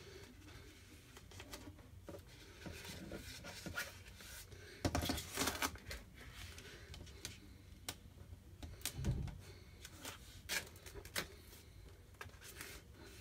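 A thin plastic stencil transfer sheet crinkling and rustling as it is handled and positioned over a glass pane. There are irregular crackles, with a cluster of louder ones about five seconds in and a dull bump about nine seconds in.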